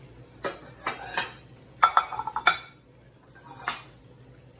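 Dishes and cookware being handled on a countertop: a handful of separate knocks and clinks, the loudest cluster about two seconds in with a short ring, as dinner plates are set out.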